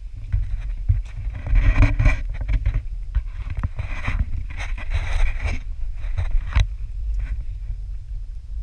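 Low rumble of wind and handling noise on a pole-mounted GoPro's microphone, with footsteps and the rustle of brushing through leafy undergrowth, loudest in two stretches about one and a half and four seconds in.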